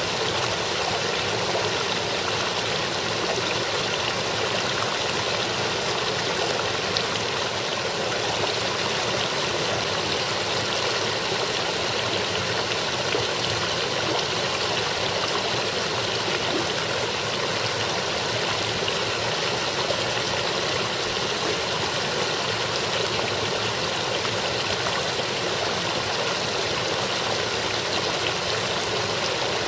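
Shallow, partly iced-over brook babbling and splashing over rocks, a steady, even rush of water.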